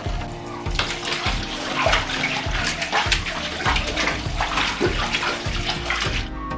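Water sloshing and splashing in a bathtub as a large soaked blanket is washed in it, uneven and continuous, starting about a second in and stopping just before the end.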